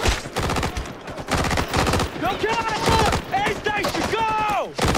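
Rapid automatic gunfire from rifles and machine guns, many sharp shots a second with a short lull about a second in. Shouting voices rise over it in the second half.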